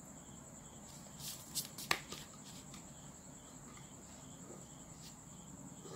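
A few sharp clicks and taps of a plastic ruler and pen being handled and laid down on paper, the loudest about two seconds in. Under them a steady high whine and a faint chirp repeating about twice a second.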